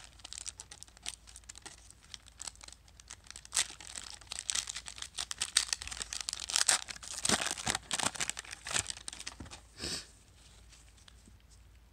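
Foil wrapper of a 1993-94 Upper Deck basketball card pack being torn open and crumpled by hand: a dense run of crinkling and tearing, loudest a little past the middle, stopping about ten seconds in.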